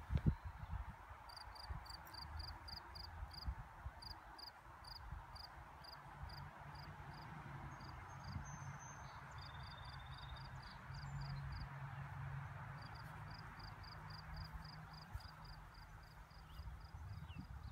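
Outdoor summer ambience: a small animal's high chirp, repeated evenly about three times a second in long runs with short pauses, over a soft hiss and wind rumble on the microphone. A brief thump comes at the very start.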